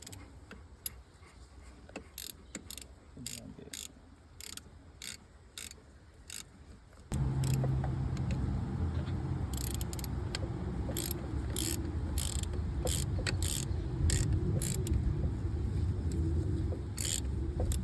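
Hand tool clicking in short runs of sharp metal clicks, a ratchet or spanner working a threaded fitting on a tractor's hydraulic steering ram. About seven seconds in, a steady low machine drone starts suddenly and carries on under the clicks.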